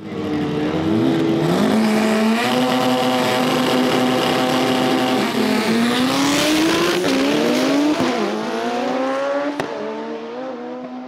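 Drag race car engines held at steady high revs on the start line, then launching with a burst of tyre noise. The engines rev up through several quick gear changes and fade as the cars pull away down the track.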